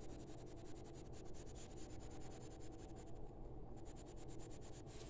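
Faint scratching of a blue-grey coloured pencil on drawing paper, laying down short strokes of fur shading.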